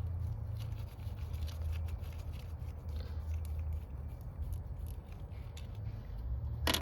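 Light metallic clicks and scrapes of a hand wrench working nuts off ignition coil wiring, with a sharper click near the end, over a steady low hum.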